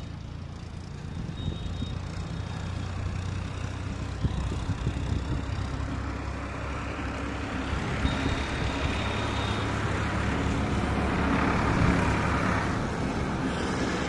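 Motor traffic on a nearby road: a vehicle engine running steadily, with a louder swell of passing traffic about eleven to twelve seconds in.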